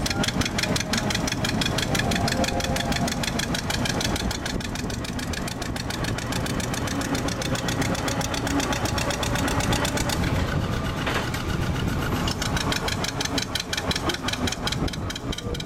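Diesel locomotive's engine running with a rapid, even knocking beat while it pulls the train along.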